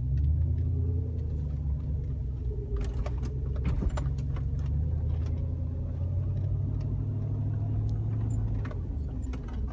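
Cabin sound of a 2001 Jeep Grand Cherokee's 4.7 V8 driving: steady engine and road rumble, its note rising twice as it picks up speed. Light metallic clicks and rattles come through, most around three to four seconds in. This is the subtle grinding from the shifter area on braking or turning right, which the owner likens to loose change.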